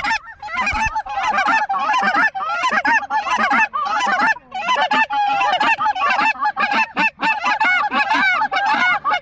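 A large flock of Canada geese honking, with many short calls overlapping into a dense, continuous chorus.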